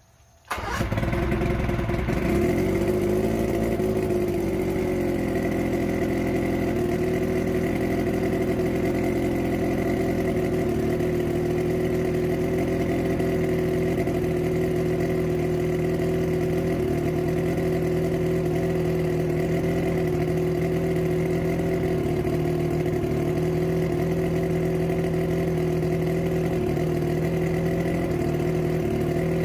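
A Mercury two-stroke outboard engine comes in suddenly about half a second in and runs on the stand. Its speed wavers for the first few seconds, then it settles into a steady idle: the test run after its WMK carburetor floats were set and a new water-pump impeller was fitted.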